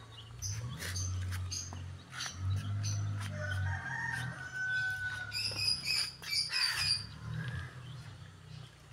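Chickens calling, with a drawn-out call about four to five seconds in and high chick peeps just after, over a low steady hum.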